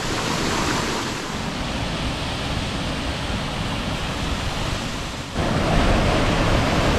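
Waterfall rushing steadily. A little after five seconds the sound breaks off and comes back louder, with a low rumble added.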